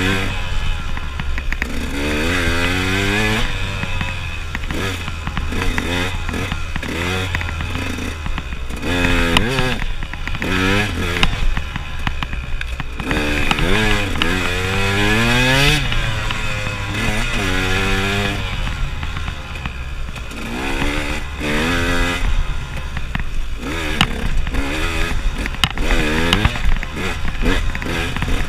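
KTM enduro dirt bike's engine revving up and easing off again and again, its pitch rising with each burst of throttle, with a few sharp knocks.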